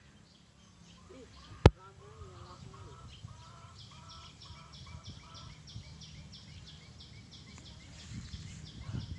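Birds calling outdoors: a high chirp repeats evenly about three times a second, with other wavering calls in the first few seconds. A single sharp knock sounds about a second and a half in, and a low rumble grows louder near the end.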